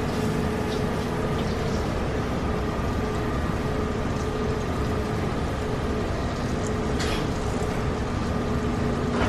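Steady mechanical hum of kitchen ventilation, holding a few even tones, over fish fillets sizzling softly in butter in a stainless skillet. A brief clink or scrape about seven seconds in.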